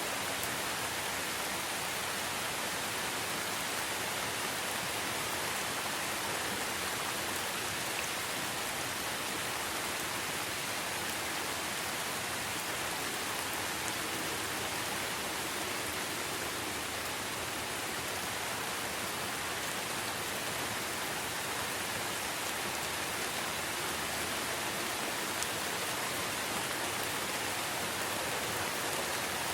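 Steady rain falling through a forest, an even hiss of many drops with no change in strength.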